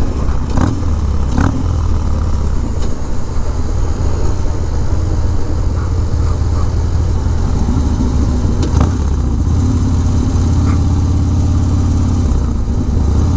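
Harley-Davidson Dyna V-twin with Bassani exhaust running steadily at highway cruising speed, with wind rush over the bike-mounted microphone.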